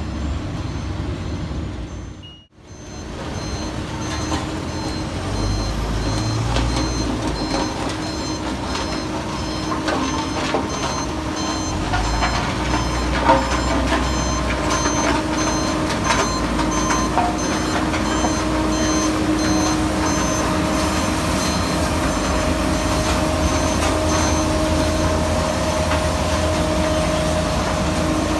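Heavy construction machine's reversing alarm beeping steadily over a running engine, with the beeping stopping near the end. The sound cuts out briefly near the start, and there is one sharp knock about halfway through.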